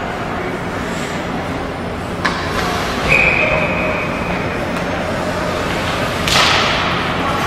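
Ice hockey play in an indoor rink: a sharp crack of stick or puck about two seconds in, a high steady whistle lasting about a second, then a louder puck slap with an echoing tail near the end, over the rink's steady hum.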